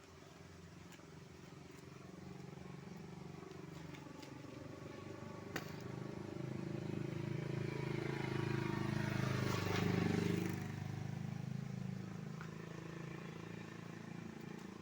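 A motor vehicle's engine approaching, growing steadily louder to a peak about ten seconds in, then passing and fading away. A single sharp click about five and a half seconds in.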